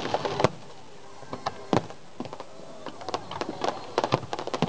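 Fireworks going off: scattered sharp pops and crackles, with a louder bang about half a second in and another near two seconds, then a quicker run of pops in the second half.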